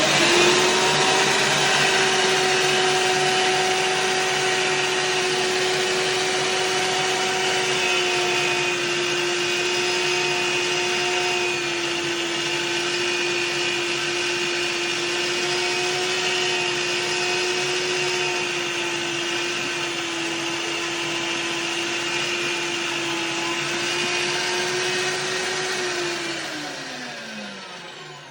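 Luvele Eclipse electric meat grinder's motor running steadily with a loud hum while mincing venison chunks. Near the end it is switched off and its hum falls in pitch as it winds down.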